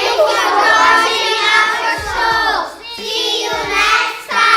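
Children singing a song together in sustained phrases, over music.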